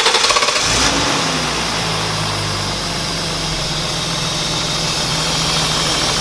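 BMW M52 inline-six engine just after catching on its first start following a VANOS rebuild with a rattle repair kit and new seals. It runs unevenly for about the first second, then settles into a steady idle.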